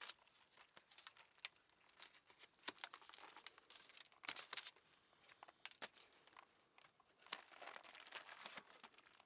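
Aluminium foil crinkling and rustling in irregular quiet bursts as it is folded and handled, wrapping up chopped potatoes for the fire.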